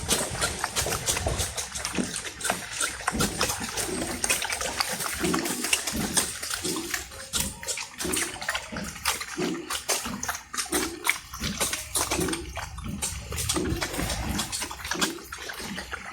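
Native pigs eating their feed: wet, sloppy chewing and many short smacking clicks, with low grunts repeating about every three-quarters of a second through the second half.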